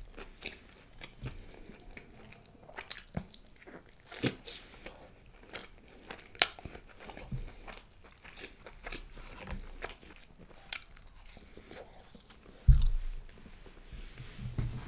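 Close-miked eating: wet chewing of a mouthful of mutton curry, rice and naan, with scattered sharp crunchy clicks. A louder low thump comes near the end.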